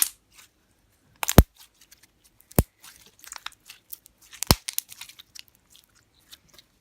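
Fluffy slime, a few days old and slightly stiffened, being squeezed and stretched by hand, giving a few loud sharp pops and many small crackles as trapped air bursts.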